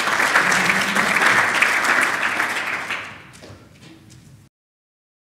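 Audience applauding: dense, steady clapping that fades about three seconds in and cuts off suddenly a second or so later.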